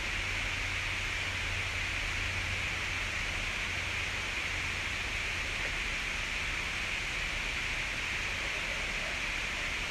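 Steady, even hiss, strongest in the upper-middle range, with a low hum underneath and no distinct events.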